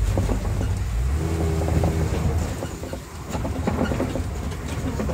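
Safari tour vehicle running over a rough track, heard from aboard: a steady low engine rumble with frequent rattles and knocks as it jolts along.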